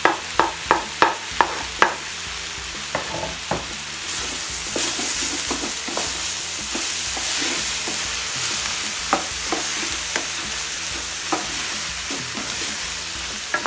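A wooden spoon knocks sharply several times against a chopping board and the rim of a steel pan as diced tomato is scraped into frying vegetables. From about four seconds in, the sofrito sizzles louder as it is stirred with the spoon, with an occasional knock on the pan.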